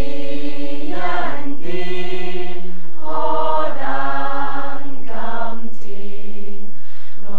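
A group of voices singing together, a slow melody in long held notes that move to a new pitch every second or so.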